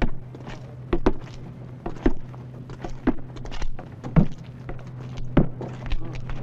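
Footsteps on a wooden platform: heavy, slow steps about once a second with lighter knocks between, the loudest a little past the middle, over a steady low hum.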